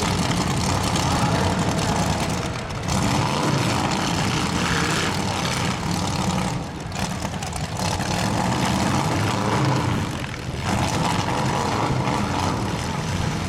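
Loud engines of demolition derby cars running hard together, a dense continuous engine noise that dips briefly now and then.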